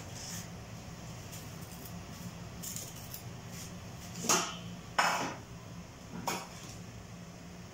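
Kitchenware being handled: bowls, pot lids and utensils clink and knock a few times, with the loudest knocks about four to five seconds in, over a low steady hum.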